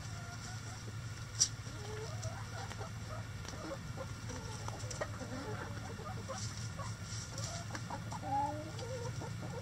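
Backyard chickens clucking with short, scattered calls as they forage, with a louder cluster of clucks about eight seconds in. A single sharp click comes about a second and a half in, over a steady low hum.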